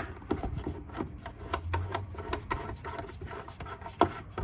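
A Phillips screwdriver is backing a screw out of an anchor winch's housing. It makes a run of small, irregular clicks and scrapes, with a sharper click about four seconds in.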